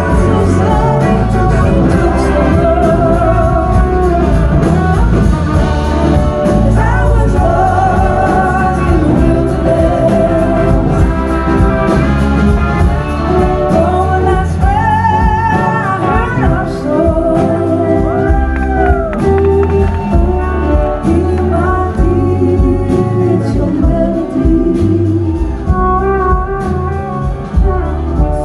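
Live blues-rock band playing: electric guitars, bass and drums, with a woman singing over them. The band plays continuously, with wavering, gliding held notes.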